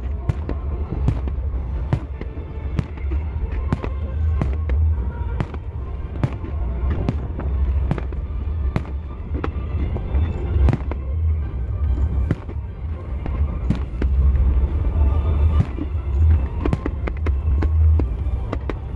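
Aerial firework shells bursting in a rapid run of sharp bangs, two or three a second, over a deep continuous rumble, with music playing along.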